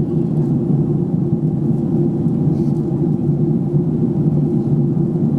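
Steady low drone of a jet airliner's engines and rushing air, heard from inside the passenger cabin in flight.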